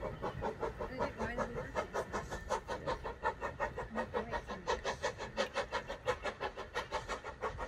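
Steam tank engine W11 Newport, an LB&SCR A1X Terrier, chuffing as it pulls away along the line: a steady rhythm of exhaust beats at about five a second.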